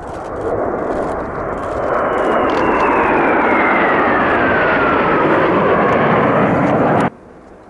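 Kawasaki T-4 jet of the Blue Impulse team making a loud pass: a rushing jet roar swells over the first two seconds, and a turbine whine glides steadily down in pitch as the aircraft goes by. The sound cuts off suddenly about seven seconds in.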